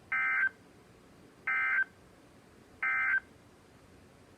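Emergency Alert System end-of-message data bursts: three short bursts of digital data tones, about a second apart, the code that marks the end of the alert.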